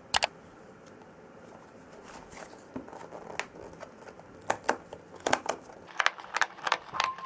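Cardboard mailer box handled, with a sharp double click just after the start, then its perforated tear strip being pulled open: a run of short rips and ticks that comes faster and louder toward the end.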